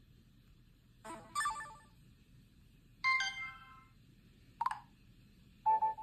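Four short electronic notification tones from the Huawei Premia 4G's small loudspeaker, each a brief chime or melody, playing one after another as stock Android notification sounds are previewed from the settings list.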